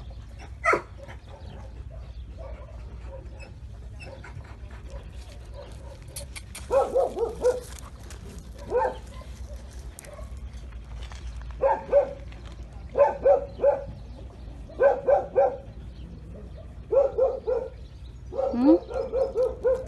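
Dog giving short, soft whining vocalisations in little runs of a few at a time while being scratched, starting about seven seconds in and coming back every second or two, over a steady low wind rumble.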